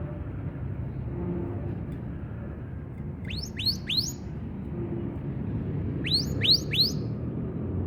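Canary giving quick rising whistled calls in two bursts of three, about three seconds apart, over a steady low background rumble.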